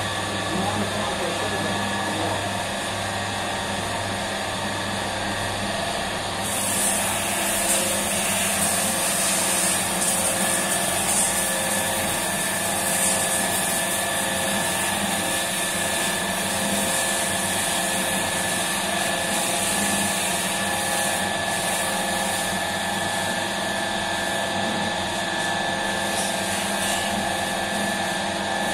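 Commercial dough mixer running, its motor giving a steady hum with several steady whining tones as the hook turns a large batch of bread dough in the steel bowl. A steady high hiss joins about six seconds in.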